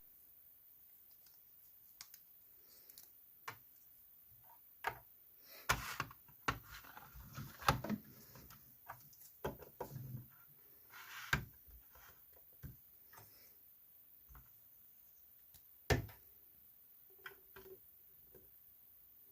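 Marbles clicking and knocking along a wooden HABA marble run: scattered irregular clacks with short stretches of rolling rattle, the sharpest knocks about six, eight, eleven and sixteen seconds in.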